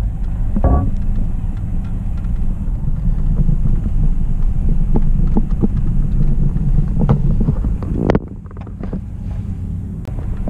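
Wind buffeting the camera's microphone: a loud, low rumble that eases suddenly about eight seconds in, then picks up again.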